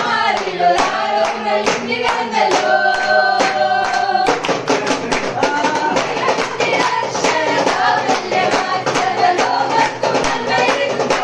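A group of children and teenage girls singing a Christmas carol together, one of them into a handheld microphone, to a steady beat.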